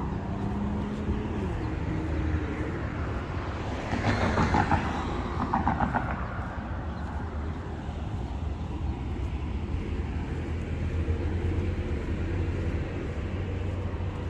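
Distant road traffic: a steady low rumble of vehicle engines, with some pitch changes. A louder, buzzy pass rises about four seconds in and fades by six.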